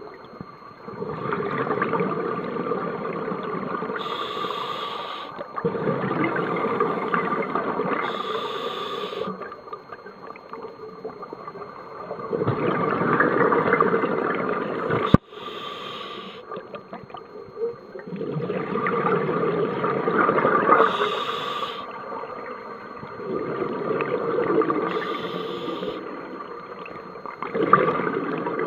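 Scuba diver breathing underwater through a regulator: a short hiss on each inhale, then a longer gurgling rush of exhaled bubbles, a breath every four to six seconds. One sharp knock about halfway through.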